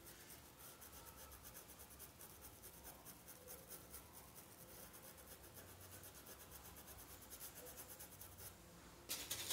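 Faint, rapid scratching of a small paintbrush stroking fabric paint onto a dish towel through a stencil, with a short louder rustle near the end.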